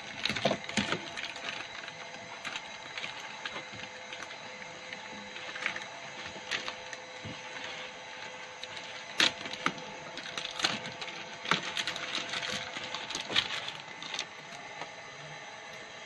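Clear plastic bag crinkling and rustling in hands, with scattered sharper crackles and small clicks, over a steady background hum.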